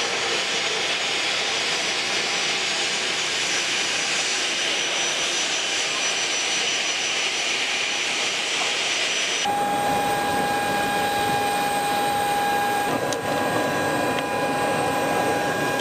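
Jet engines of a three-engined business jet running as it taxis in: a steady loud rushing noise with a high whine. About halfway through, an abrupt cut to a steadier engine whine with a clear held tone, with voices near the parked jet.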